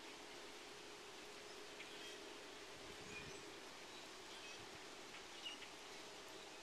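Faint, scattered short calls of a large starling flock heard over a steady hiss, the clearest chirp a little after five seconds in.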